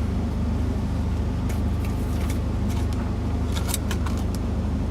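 Semi truck's diesel engine idling with a steady low hum, heard inside the cab, with a few light clicks.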